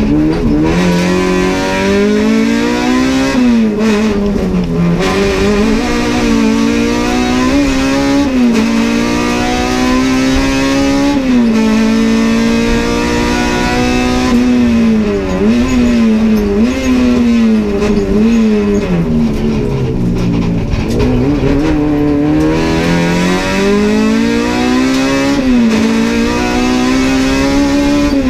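Honda Civic race car's engine heard from inside the cabin, pulling hard with its pitch climbing steadily and dropping sharply at each gear change. About halfway through, several quick dips and blips come close together, then the pitch sinks low and builds up again.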